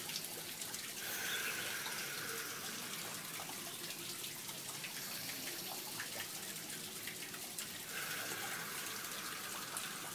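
A man breathing slowly and deeply, the breaths setting the pace of a slow hand exercise. Two long breaths stand out, about a second in and near the end.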